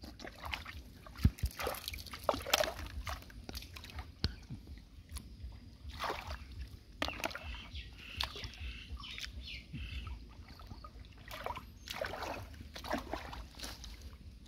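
Hands sloshing and splashing in shallow, flowing muddy water while picking snails off the bottom, with irregular small splashes and knocks.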